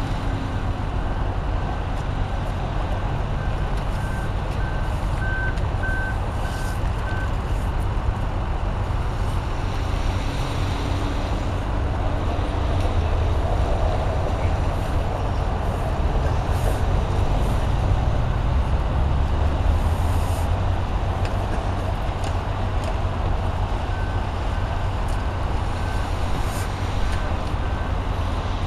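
Steady low rumble of idling vehicle engines and road traffic. A backup alarm beeps about twice a second in two stretches, a few seconds in and again near the end.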